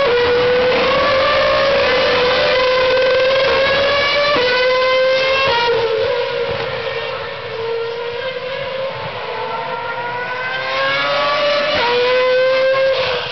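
Formula One cars' 2.4-litre V8 engines at very high revs, accelerating past one after another. The pitch climbs and drops sharply with each upshift. The sound fades in the middle and swells again near the end.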